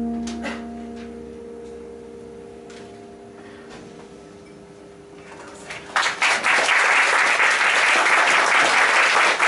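The final chord of a grand piano and acoustic guitar rings on and slowly dies away; about six seconds in, the audience breaks into applause.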